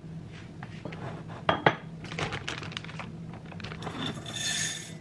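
A stainless-steel pot and its glass lid clank twice, sharply, as the lid comes off. Dry grains such as buckwheat then rattle into the empty steel pot in a run of small clicks, with a brief metallic ring near the end.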